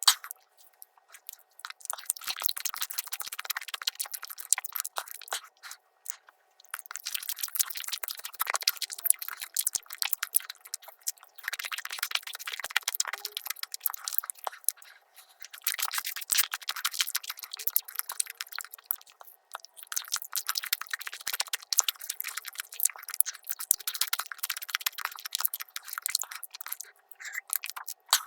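Sped-up eating sounds from crepe pancakes with Nutella: rapid, dense clicks and smacks of chewing, coming in bursts of a few seconds with brief pauses between them.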